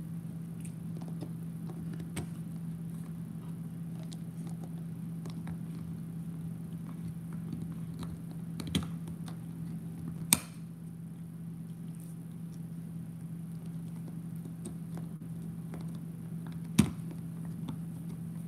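Bernese mountain dog gnawing on a chew bone: a steady run of small crunching and scraping clicks of teeth on the bone, with a few sharper cracks about nine, ten and seventeen seconds in. A steady low hum lies underneath.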